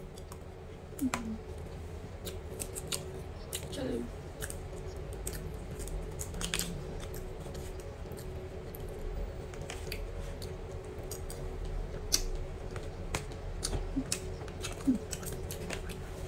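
Eating sounds: a metal spoon clicking and scraping against a plastic takeaway tray of rice, with chewing and mouth clicks. Short sharp clicks come irregularly throughout, over a steady low hum.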